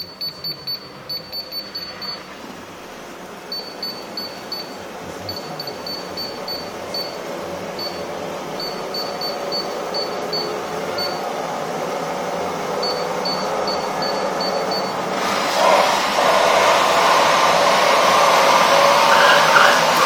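Vacuum cleaner running, its noise growing steadily louder and stepping up sharply about three quarters of the way through. Short high beeps sound in quick groups over the first part.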